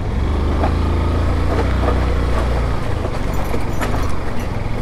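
Motorcycle engine running with a loud, deep, steady drone that drops back about three seconds in, with several sharp knocks and rattles from the bike going over a rocky track.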